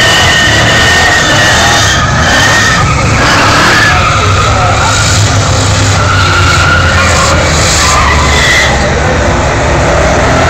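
Loud car burnout: a high-revving engine with the rear tyres spinning and screeching on the track.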